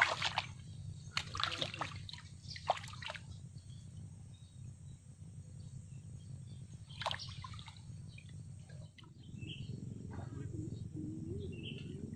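Water splashing and sloshing in a few short bursts during the first three seconds and once more about seven seconds in, over a steady low hum; faint bird chirps near the end.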